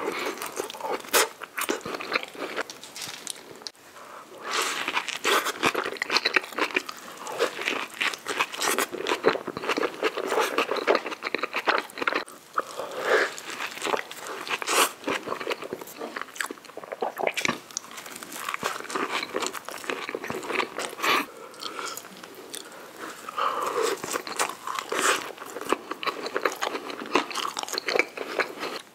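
Close-miked eating: a man biting and chewing cheeseburgers and cheese-covered fries, with many quick wet mouth clicks between bites.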